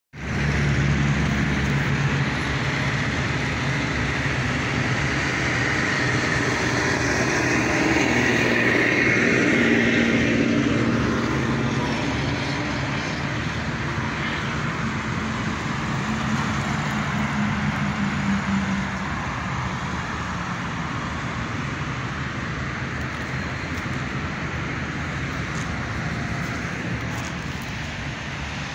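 Steady vehicle engine noise that swells to its loudest about ten seconds in, then slowly fades.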